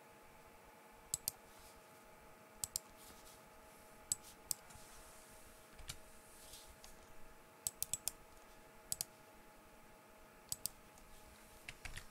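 Computer mouse clicking, a dozen or so sharp clicks, mostly in quick pairs like double-clicks, over a faint steady hum.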